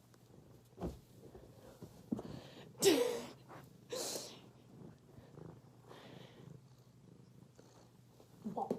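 An animal purring low and steadily, broken by a few short, louder noises about one, three and four seconds in; the last is a sharp hiss.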